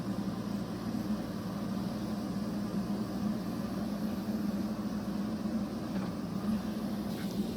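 JCB backhoe loader's diesel engine running at a steady pace, a constant hum with no change in speed.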